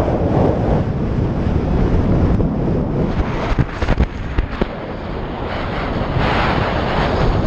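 Wind buffeting the microphone: a loud, low rumble, with a few sharp knocks in the middle.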